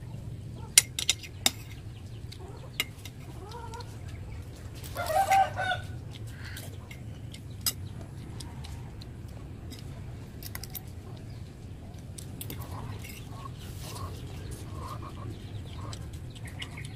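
A spoon clinks a few times against a glass plate, and a chicken clucks, loudest in one call lasting about a second around five seconds in, with fainter calls later, over a steady low background hum.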